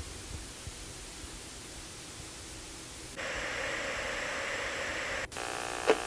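Television static: an even hiss of white noise from old CRT sets. It grows louder about three seconds in and cuts off sharply about five seconds in. A steady electrical hum takes over, with a short blip near the end.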